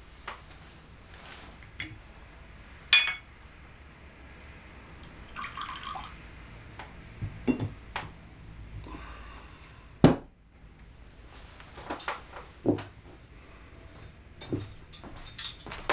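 A glass decanter and tumbler clinking as liquor is poured into the glass, with a bright ringing clink about three seconds in and short stretches of pouring liquid. A heavy knock about ten seconds in, then a run of small taps and clicks of glass near the end.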